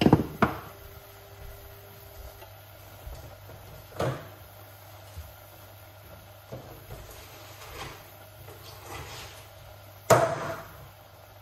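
A few sharp knocks and clatters of kitchen items being handled and set down. The loudest come at the start and about ten seconds in, over a low steady hum.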